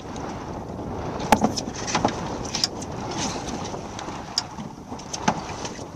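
Wind noise on a small fishing boat, broken by several sharp knocks and clatters as a kingfish is lifted over the side and aboard.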